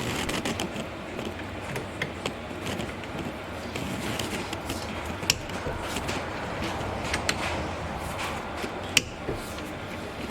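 Click-type torque wrench clicking as the rear brake caliper mount bolts are tightened to 41 foot-pounds. Scattered sharp clicks, the loudest about five and nine seconds in, over steady background noise.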